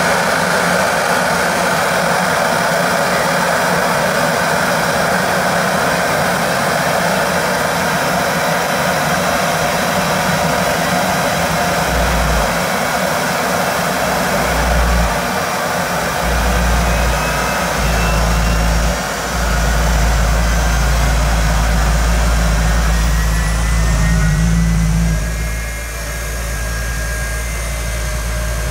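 Jet truck's jet engine running loud and steady at a standstill, a high whine riding over the roar, while it shoots flames from its exhaust stacks. A deep rumble comes and goes from about twelve seconds in, and the sound eases off a little a few seconds before the end.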